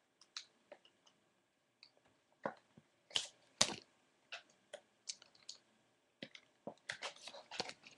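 Trading cards being handled off-camera: faint, irregular light clicks, coming more often in the second half.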